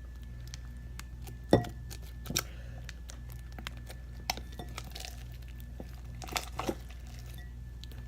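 Sticky slime full of foam beads being mixed, giving scattered clicks and pops, the loudest about one and a half seconds in, over a steady low hum.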